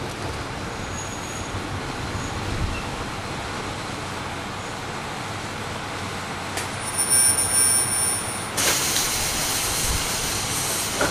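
Cabin sound of a KiHa 38 diesel railcar heard from above its DMF13HS diesel engine: a steady running noise. About two-thirds through, a click and a thin high squeal come in, then a loud hiss of air takes over near the end.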